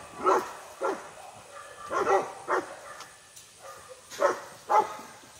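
A dog barking, about six sharp barks in three rough pairs.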